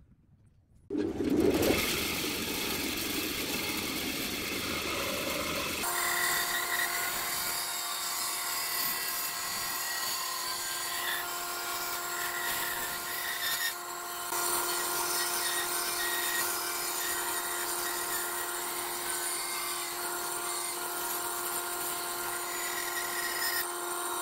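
Band saw running and cutting a curve through a wooden board: a steady machine hum with the noise of the blade in the wood. It starts suddenly about a second in.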